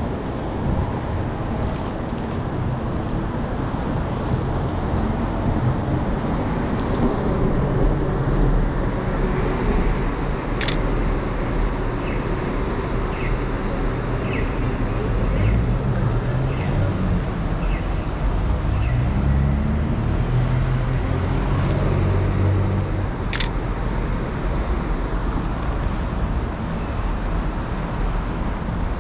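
City street traffic: a steady wash of passing cars with a low engine rumble. Two sharp clicks stand out, about ten seconds in and again about twenty-three seconds in, and a row of short, evenly spaced high beeps under a second apart sounds between them.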